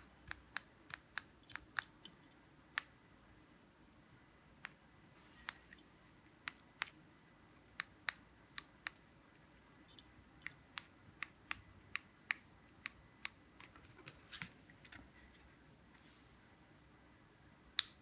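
Sharp clicks of the push-buttons on a chrome four-button remote control duplicator being pressed while it is programmed: a quick run of about seven in the first two seconds, then scattered single presses, with a louder click near the end.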